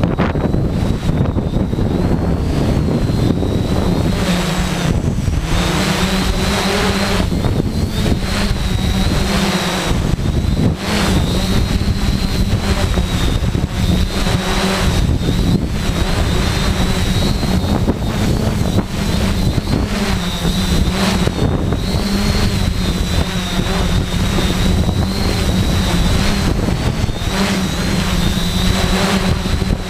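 Tarot 680 hexacopter's brushless motors and propellers humming, their pitch wavering up and down, under heavy wind buffeting the microphone.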